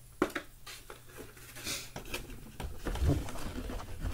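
Handling noise as a foam board-game insert is lifted out of its cardboard box and held up: sharp clicks and knocks, rustling and scraping, and dull bumps about three seconds in.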